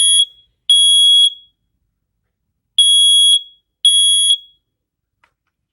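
First Alert smoke alarm sounding on its test button: a loud, high-pitched horn in the temporal-three alarm pattern of half-second beeps, finishing a group of three, pausing about a second and a half, then giving two more beeps before it stops.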